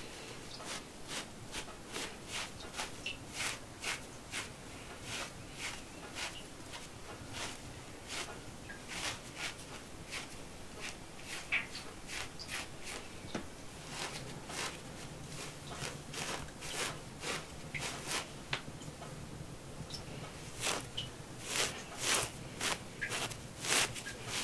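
Raw wool being teased apart by hand: short, crisp tearing and rustling strokes as the fibres are pulled loose, a few a second at an uneven pace, louder near the end.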